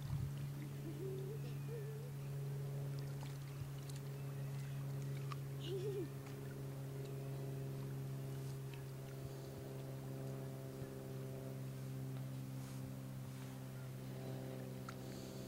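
A steady low hum made of several held tones, with higher tones joining about halfway through.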